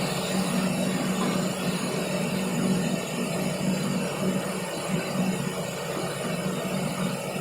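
Aluminium cutting machine running steadily, a constant motor hum over an even mechanical noise.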